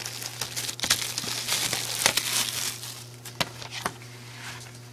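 Plastic shrink-wrap on a DVD box set crinkling and crackling as it is handled and peeled off. The crackling is busiest for the first three seconds, then thins to a few separate crackles.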